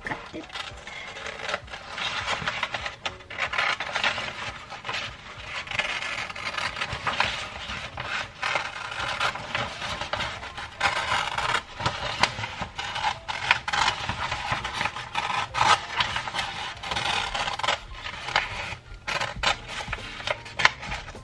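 Stiff wrapping paper rustling and crinkling as it is cut with scissors and folded by hand, a dense run of irregular crackles and rubbing.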